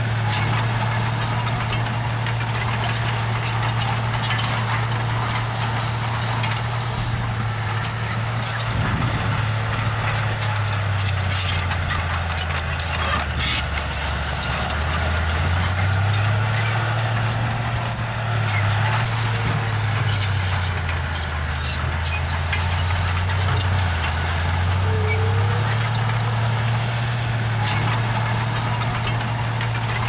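Heavy diesel engine of a construction machine running steadily. Its engine speed dips twice, once around the middle and again about two-thirds through, and picks back up each time.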